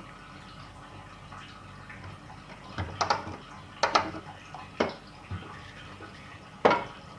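Water dripping and splashing while the washing machine's drain valve and pipe are handled, with about five sharp knocks in the second half, the loudest near the end.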